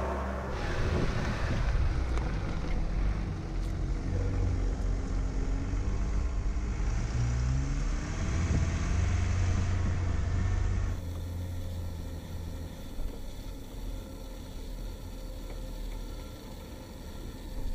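Mercedes G-Class SUV engine running at low speed with a heavy rumble, its pitch rising and falling as the vehicle crawls over a wooden plank track. About eleven seconds in the sound cuts to a quieter, steady hum heard from inside the cabin.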